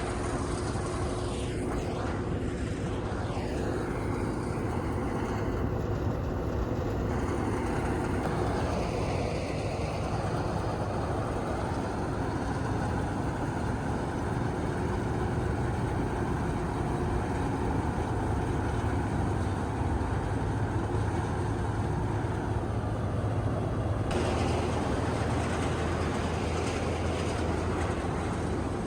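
Malkit combine harvester running steadily while cutting paddy, a continuous engine and threshing drone. Its tone shifts about 24 seconds in.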